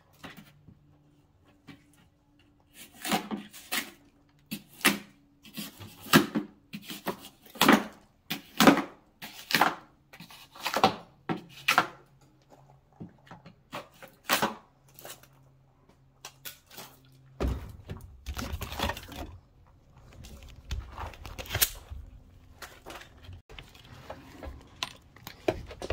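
Many irregularly spaced knocks and clunks, like objects being handled and set down, over a faint steady hum; a low rumble comes in about two-thirds of the way through.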